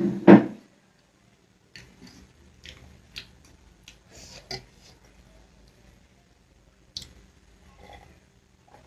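One short loud sound right at the start, then scattered soft clicks and taps, the sound of bowls and utensils being handled at the table after eating.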